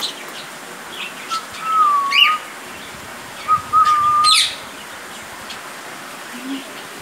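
Cockatiels and other cage birds in an aviary calling. Two whistled notes about a second long, each ending in a quick rising chirp, stand out over scattered short chirps.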